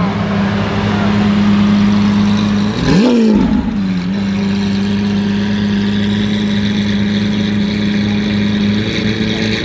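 Lamborghini Aventador LP700-4's V12 idling through a straight-piped Capristo exhaust. About three seconds in it gives one quick rev that rises and drops straight back to a steady idle.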